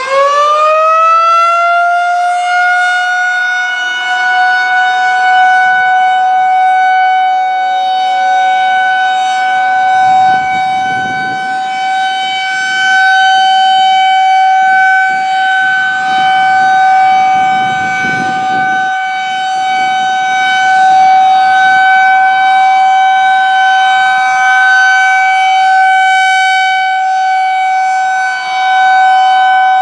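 Federal Signal 2001-130 single-tone rotating electromechanical siren sounding a steady alert signal as a test: it finishes winding up to full pitch in the first couple of seconds, then holds one steady high tone that swells and fades slightly as the horn turns.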